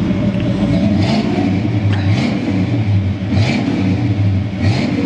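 1968 Buick GS 400's 400 cubic-inch V8 running through its dual exhaust, given small blips of throttle that make the engine's torque rock the car.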